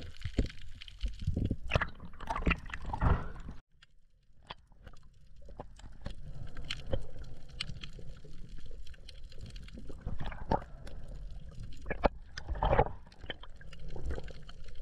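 Underwater camera audio in shallow reef water: muffled sloshing and gurgling of the wave surge, with scattered short clicks and crackles. The sound cuts out abruptly about three and a half seconds in and comes back a moment later.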